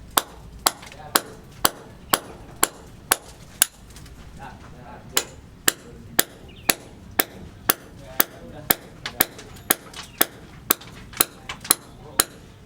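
Hammer blows on a building site, struck steadily about twice a second, with a short break about four seconds in before they carry on.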